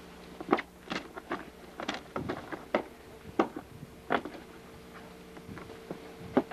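Irregular knocks and taps of wood and tools, about a dozen sharp hits at uneven spacing, from demolition work pulling apart an old log house.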